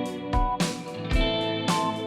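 Background music: a plucked guitar tune over a steady beat.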